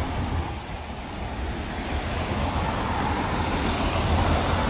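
Road traffic: vehicles running past close by, a steady rumble that dips briefly and then grows louder near the end.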